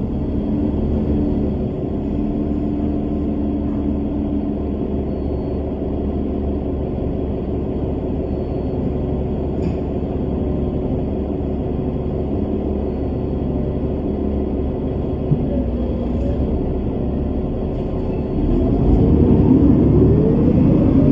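Bus engine and road noise as a steady low rumble. Near the end it grows louder and the engine pitch rises and falls, as when the bus accelerates.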